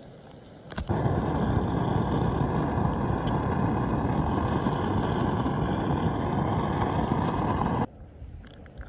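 Compact kayak's two-horsepower outboard motor running at a steady speed under way, a loud even noise that starts suddenly about a second in and cuts off abruptly near the end.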